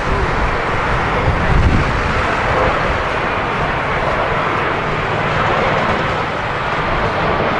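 Jet airliner's engines, a steady rushing noise, with gusts of wind buffeting the microphone in a low rumble.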